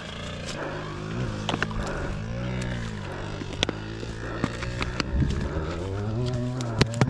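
A two-stroke dirt-bike engine running nearby, its revs rising and falling twice. Sharp clicks come from a plastic bottle being handled and uncapped close by.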